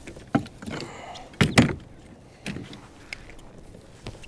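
A fishing reel being wound while a hooked largemouth bass is played from a kayak, with a few sharp knocks of gear against the boat, the loudest a pair about a second and a half in.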